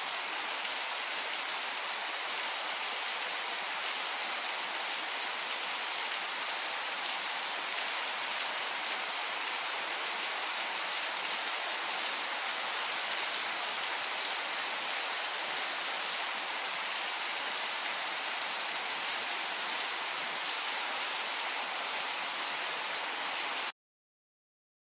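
Steady rain, an even hiss with no single drops standing out, that cuts off suddenly near the end.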